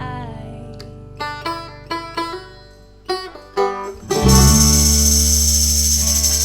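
A small acoustic band playing live: a chord rings out and fades, then a few single plucked notes on a banjo-like string instrument, and about four seconds in the full band comes back in loudly with deep bass and a shimmering high jingle that rings on.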